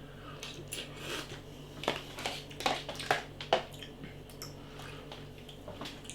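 A man eating a tub of instant noodles close to the microphone: chewing and wet mouth sounds, with a run of short smacks and clicks in the middle.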